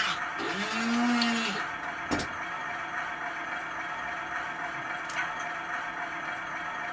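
Model diesel railcar's recorded sound: a horn blast of two notes together, about a second long, starting about half a second in. A sharp click follows at about two seconds, and a steady diesel engine idling sound runs throughout.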